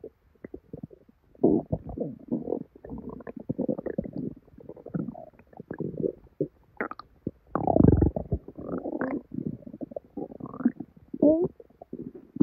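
A human stomach and intestines gurgling and bubbling in irregular bursts, from severe bloating after eating a salad. There is a longer, deeper gurgle about eight seconds in and a short rising, higher-pitched gurgle near the end.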